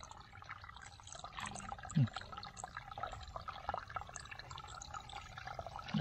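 Muddy water dripping and sloshing in a woven bamboo basket, with many small irregular drips and splashes. A short vocal sound comes about two seconds in.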